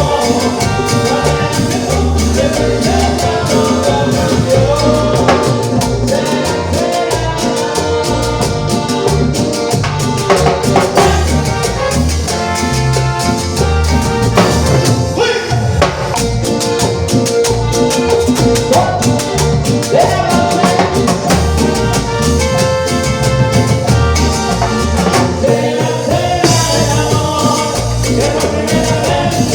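Latin tropical dance band playing: a steady drum-kit and percussion beat under bass and a melodic lead line, continuous and loud.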